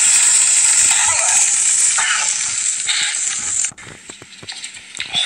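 Loud steady sizzling hiss of a lit bomb fuse, cutting off suddenly about three and a half seconds in, then a few faint clicks and taps.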